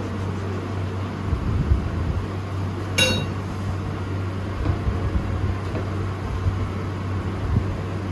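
A single sharp clink with a short ringing tail about three seconds in, over a steady low hum.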